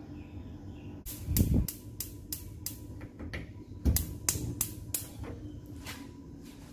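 Gas hob burner's spark igniter clicking, about three sharp clicks a second while the knob is held to light the burner, with two dull knocks among the clicks.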